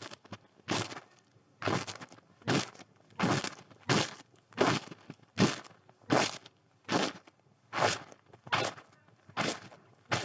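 Footsteps crunching through snow at a slow, even walking pace, a little more than one step a second.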